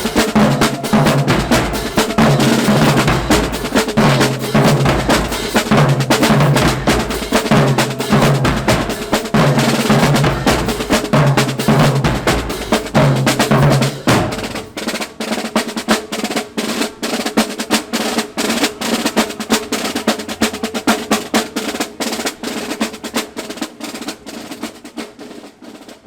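Marching band drumline playing a cadence: rapid snare drum strokes, with a low pitched bass figure repeating about once a second through the first half. The low part then drops out, leaving the snares, which fade near the end.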